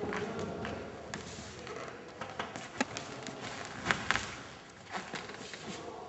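A few sharp knocks and taps as a framed mirror prop is handled, the loudest pair about four seconds in, over a low background murmur.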